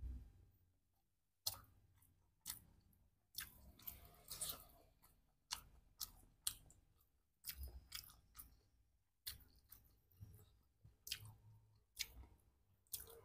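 Close-up eating sounds: a person chewing a mouthful of rice and side dishes, with sharp, irregular smacks and crisp crunches every half second to a second.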